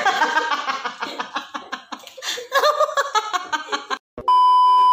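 A boy laughing in choppy fits of giggles for about four seconds. Near the end a loud, steady test-tone beep starts abruptly: the tone that goes with a colour-bars test card.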